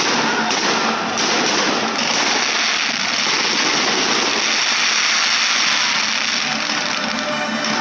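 Fireworks going off in a dense, continuous crackle of many small rapid pops.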